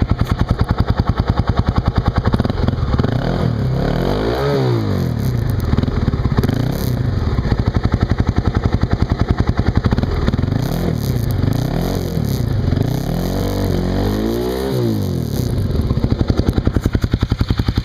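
Kawasaki KLX250S single-cylinder four-stroke through an FMF Q4 slip-on exhaust, idling with an even beat and then revved up and back down several times, the biggest revs about four seconds in and near the end, before settling back to idle. The peak measures about 99 dB on a phone meter app.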